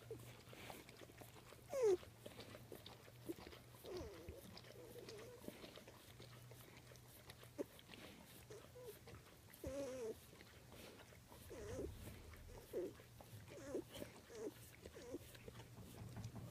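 Two-week-old Otterhound puppy nursing: short squeaky whimpers and grunts every second or so, with faint clicks of suckling, over a steady low hum.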